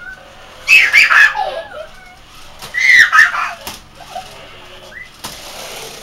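Small boy squealing excitedly in two loud, high-pitched outbursts about two seconds apart, with a single sharp knock near the end.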